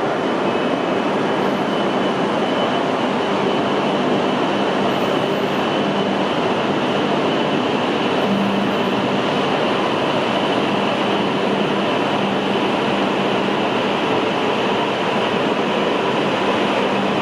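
E5-series Shinkansen train at the platform, a steady, even running noise with a faint hum through it.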